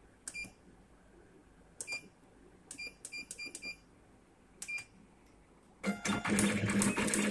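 Control-panel keypad beeps on an automatic wire cutting and stripping machine as settings are keyed in: single beeps, then a quick run of several. About six seconds in the machine starts its cutting and stripping cycle, a loud mechanical running with rapid clicking over a steady hum.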